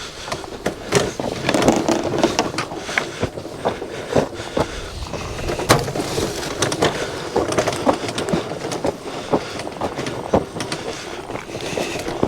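A small, frozen-up single-seat go-kart being dragged over snow and ice: irregular scraping and crunching with scattered knocks and clatters.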